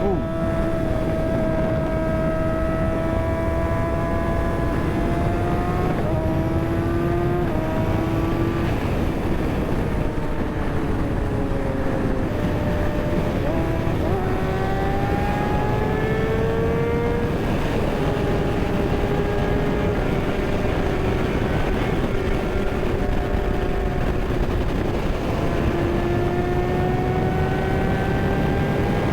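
Kawasaki ZX-6R's inline-four engine running at high revs, its pitch shifting as the throttle is rolled on and off, with a few short drops at about six to eight seconds in and a dip and climb in the middle. Wind rushes over the microphone throughout.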